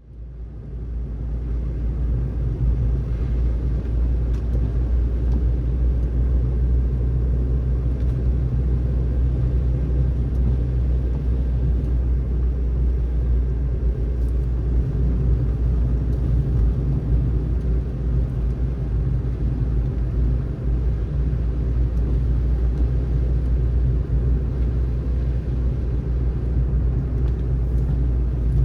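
Car driving: a steady, low rumble of tyre and engine noise that fades in over the first second or two, then holds steady.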